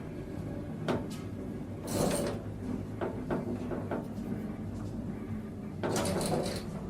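Elevator with a steady low hum, a click about a second in, and two short sliding rushes, one about two seconds in and one near the end.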